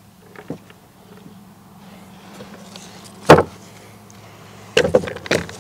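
A single sharp metallic clack about three seconds in, the CZ Scorpion Evo 3 carbine's bolt slapped home to chamber a round, then near the end a clatter of loose 9mm cartridges spilling.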